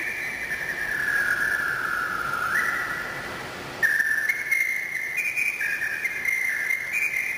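Accompaniment music for a synchronized swimming duet: a single high, whistle-like melody line that slides down and back up, then about four seconds in grows suddenly louder and hops back and forth between a few notes.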